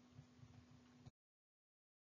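Near silence: faint room tone with a low steady hum, cutting to dead digital silence about halfway through.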